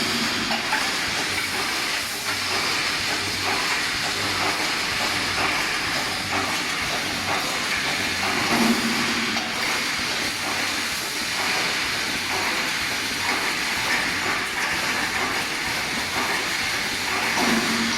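Automatic wire mesh welding machine running: a steady hiss with rapid clicking and clatter, and a short hum about halfway through and again near the end.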